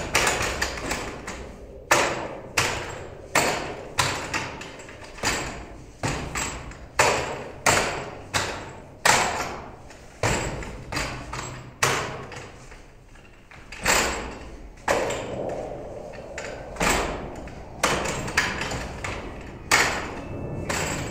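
Hands and forearms striking the wooden arms and trunk of a Wing Tsun wooden dummy (mook yan jong): a run of sharp wooden knocks at an uneven pace, each ringing briefly, with a short lull about halfway.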